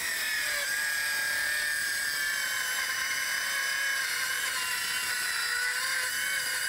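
Circular trim saw ripping along the edge of a 2x4: a steady high whine of the motor and blade under load, its pitch dipping slightly in the first second as the blade bites in, then holding.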